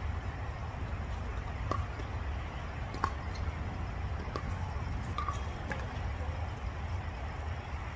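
Tennis ball being struck in a rally: four sharp pops about a second and a half apart, over a steady low outdoor rumble.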